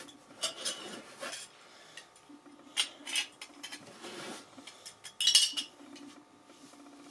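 Metal belt buckles clinking and clicking against one another as they are handled, in scattered small knocks with the loudest clink about five seconds in.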